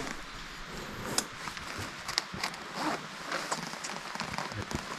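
Rustling of a hiker's jacket and backpack with scattered small clicks and taps as gear is handled.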